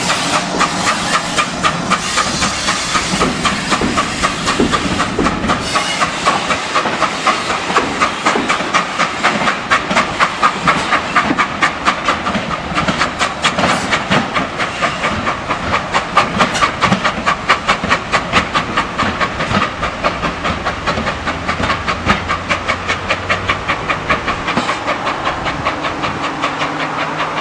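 GWR Collett 0-6-2 tank engine No. 6619 working away from a standstill with its train: steam hissing over a fast, even rhythm of exhaust beats.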